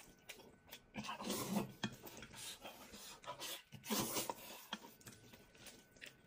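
Close-up eating sounds: noodles slurped into the mouth and chewed, in noisy bursts about a second in and again about four seconds in.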